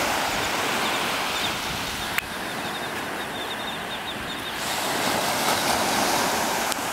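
Ocean surf breaking and washing on a sandy beach, a steady rushing noise, with one sharp click about two seconds in.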